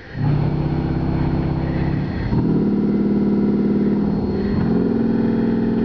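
Pipe organ's 32-foot Bombarde pedal reed stop sounding deep, buzzy sustained bass notes played on the pedalboard. The note changes about two seconds in and again near the end.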